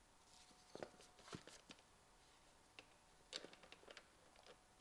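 Near silence with a few faint clicks and rustles as a pressed toilet-paper disc is handled and fitted onto an angle grinder's spindle by hand.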